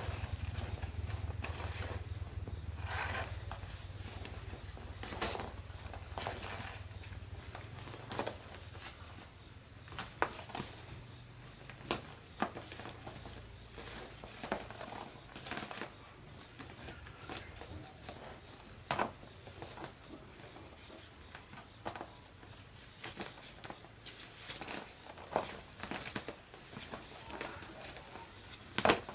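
Scattered sharp clicks and knocks at irregular intervals over a steady high-pitched hum, with a low rumble that fades away over the first several seconds.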